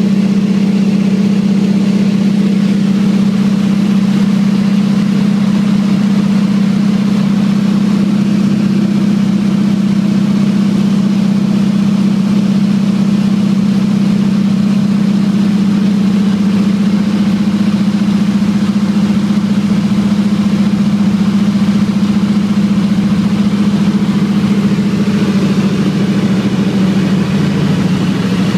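Single-engine floatplane's piston engine and propeller, heard from inside the cabin: a loud, steady drone with a strong low hum that shifts a little near the end.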